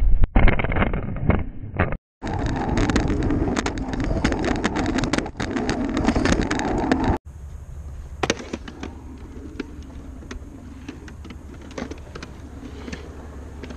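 Wheelchair wheels rolling over concrete skatepark surfaces, heard from a camera under the seat: a loud rumble with many rattling clicks. It cuts out briefly about two seconds in, then drops abruptly after about seven seconds to a quieter rolling hiss with a low hum and occasional clicks.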